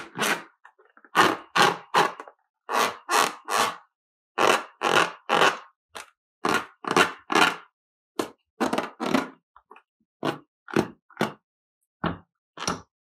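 Slime-filled rubber balloon squeezed repeatedly by hand, squelching in quick runs of two or three squeezes with short silent pauses between.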